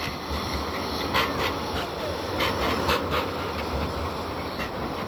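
Bombardier Flexity 2 tram running past on street track, with wind buffeting the microphone. Several short sharp sounds come over it between about one and three seconds in.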